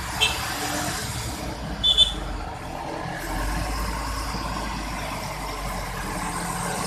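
Diesel bus engine running with a low rumble as a bus pulls away, growing stronger after about three seconds. Two brief high-pitched chirps sound about a quarter second and two seconds in.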